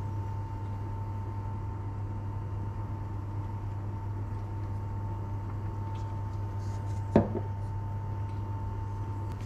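A steady low hum with a faint high tone runs throughout. About three-quarters of the way through there is a single sharp knock as a drinking glass is set down on a stone countertop.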